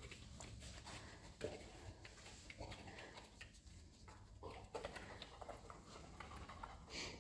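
Faint patter of a dog's paws and claws on the floor as it moves about searching on leash, with scattered light taps and a short hiss near the end.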